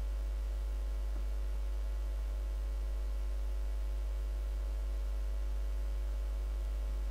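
Steady low hum with a faint hiss, unchanging, and no other sound.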